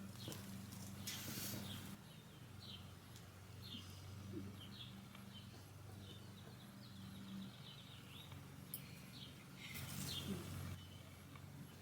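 Birds chirping outdoors: short, repeated high calls, faint, over a steady low hum. Two brief bursts of hiss come about a second in and near the end.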